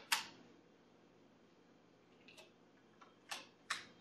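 A few short clicks in a quiet room: one just after the start, two faint ones in the middle, and two louder ones close together near the end.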